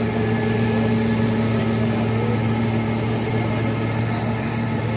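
A steady, even machine hum with a dense background din.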